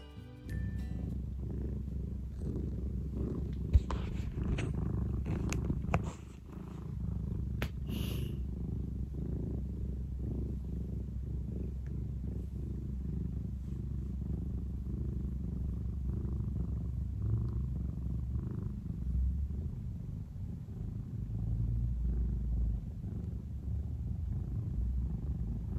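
Scottish Fold cat purring steadily, a continuous pulsing low rumble, as she is stroked: the contented purr of an affectionate cat. A single sharp click about four seconds in and a short rustle a few seconds later come from handling.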